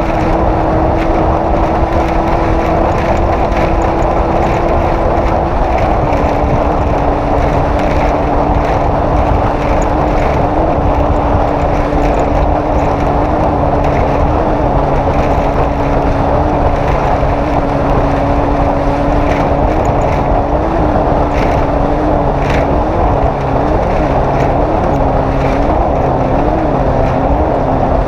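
Off-road race vehicle's engine running hard and steady, with a thick wash of wind and terrain noise. Its pitch drops slightly about five seconds in, and near the end it wavers in a string of short, quick rev blips.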